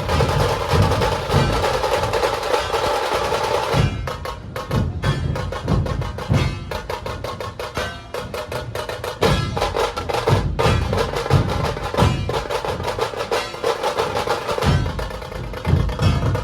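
Dhol-tasha ensemble playing: deep dhol beats about twice a second under a fast, continuous rattle of tasha strokes. For the first four seconds a held mid-pitched sound lies over the drums, then drops away, leaving only the drums.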